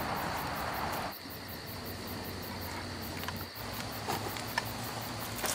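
Insects in the woods: a steady high trill with rapid, even high-pitched pulsing above it, and a few faint clicks.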